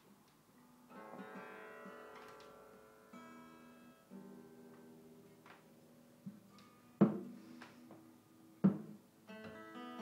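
Acoustic guitar: a few strummed chords left to ring, then sparse notes, with two sharp knocks a couple of seconds apart, the loudest sounds here. Steady strumming starts near the end.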